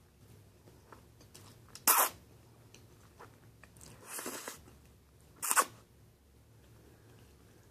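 Spaghetti eating noises: three short slurps and mouth sounds, about two, four and five and a half seconds in. The longest, at about four seconds, is a single strand of spaghetti being slurped in.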